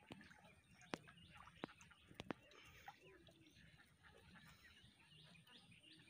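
Near silence with faint birds chirping in the background and a handful of short, sharp ticks in the first half.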